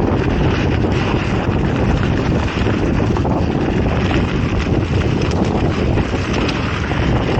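Wind rushing over an action camera's microphone on a moving mountain bike, with a steady low rumble from the tyres on a dirt trail and a few faint clicks and rattles.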